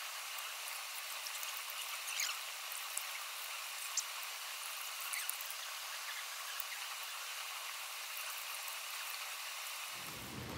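Shallow stream running steadily over stones, with a few faint ticks and small splashes from hands working at the water's edge.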